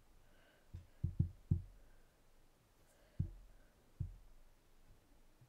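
Handling noise: a few soft, low thumps, three close together about a second in, then single ones at about three and four seconds.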